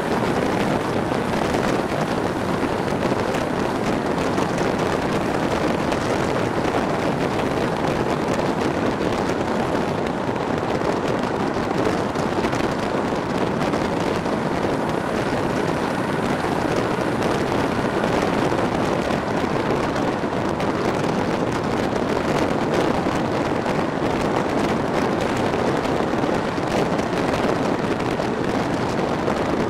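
Steady wind rushing past an open window of a moving diesel-hauled passenger train, mixed with the train's even running noise.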